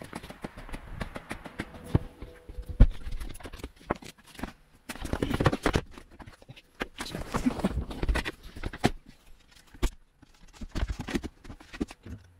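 Footsteps on a concrete floor, then knocks, scrapes and rustling as a wooden battery box is handled and fitted between a van's front seats.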